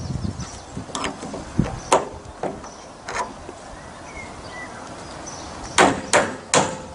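Hammer striking, nailing timber cladding boards to a wooden rail: a few separate blows, then three quick, loud strikes near the end.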